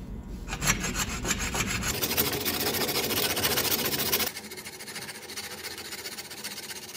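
A rod saw blade in a hacksaw frame is rasping back and forth through a horn nock on a longbow tip, cutting the string groove. The strokes are loudest through the first four seconds, then go on more quietly.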